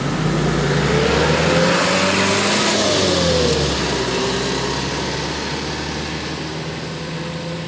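A minibus and a pickup truck driving past. The engine noise is loudest early, and its pitch rises and then falls about three seconds in as the nearer vehicle goes by.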